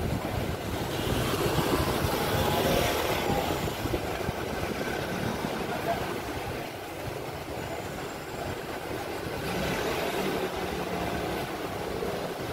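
City street traffic: the engines and tyres of passing cars and taxis. A vehicle passes louder a second or two in, and another near the end.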